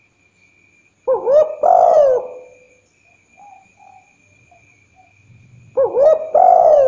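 Spotted dove cooing in two phrases about five seconds apart, each a short coo followed by a longer one that slides down in pitch. A faint steady high whine runs underneath.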